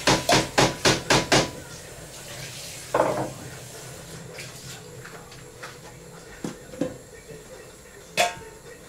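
Rapid, even knocks, about four a second, that stop about a second and a half in. Then kitchen dishes and utensils clatter and clink, with one louder clatter about three seconds in.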